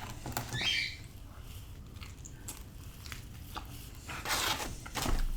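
A person chewing and biting pizza close to the microphone, with scattered wet mouth clicks and a few louder bites about half a second in and again near the end.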